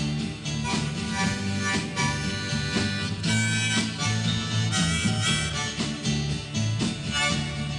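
Instrumental break of a 1960s folk-rock song: a harmonica playing a solo over strummed guitar and a steady beat.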